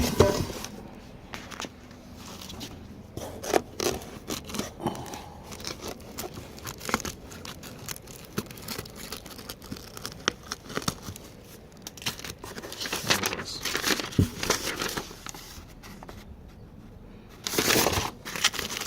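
Packing material crinkling and tearing as an exhaust is unwrapped, with scattered light knocks and rustles and a louder burst of rustling near the end.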